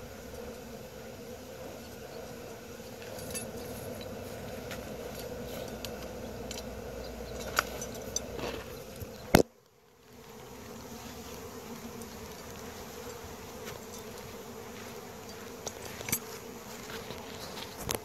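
Swarm of honeybees in flight, a steady drone of many bees buzzing together. About halfway through there is a sharp knock and the sound drops out for a moment before the buzzing returns.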